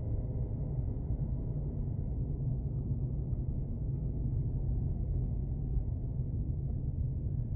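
Steady low rumble of a car driving along a city street: engine and tyre noise at an even cruising pace.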